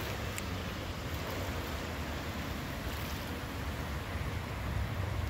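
Steady outdoor wind noise on the microphone: a fluttering low rumble under an even hiss.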